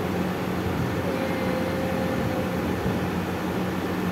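Steady low hum with an even hiss of background noise from a running appliance.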